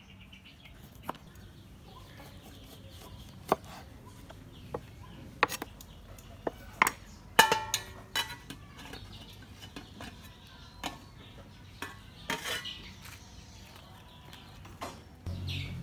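A knife on a wooden chopping board and a clay mortar and pestle being handled: a string of scattered light knocks and taps. The loudest is a short ringing clatter about halfway through.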